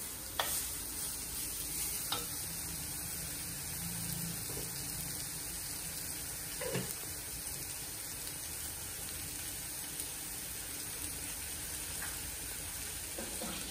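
Grated beetroot sizzling steadily in an earthenware clay pot as it fries, with a few soft knocks of the spoon against the pot.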